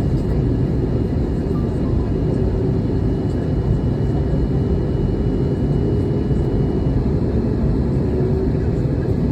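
Steady rumble of an Airbus A320neo in flight, engine and airflow noise as heard in the passenger cabin, with a faint thin high tone that stops about seven seconds in.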